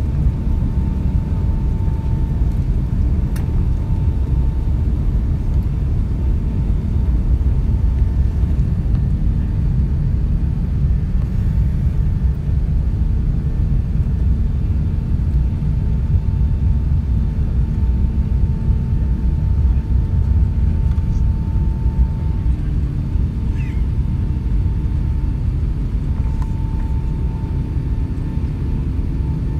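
Airbus A380 passenger cabin on the takeoff run: a steady low rumble of jet engine and runway noise.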